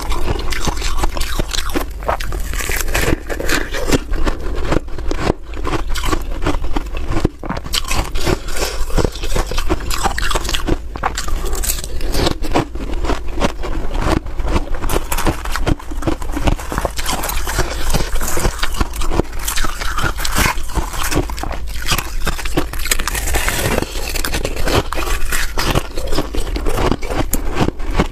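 Hard ice being bitten and chewed close to the microphone: a loud, unbroken run of crisp crunches and crackles.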